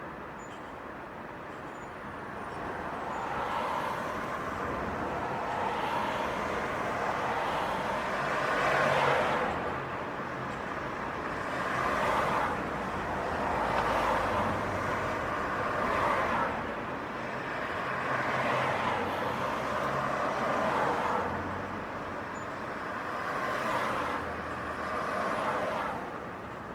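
City street traffic: a stream of cars passing one after another, the tyre and engine noise swelling and fading with each vehicle, about eight passes in all.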